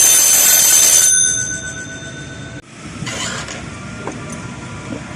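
Electric alarm bell of a laser tripwire alarm ringing for about a second, then dying away, the alarm being set off. Quieter rustling noise follows.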